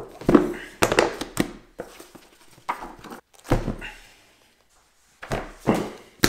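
Stacks of hardcover and paperback books set down one after another on a felt-covered pool table: a string of thuds with covers scuffing and sliding. They come in clusters, several in the first second and a half, more around the middle, and another run near the end.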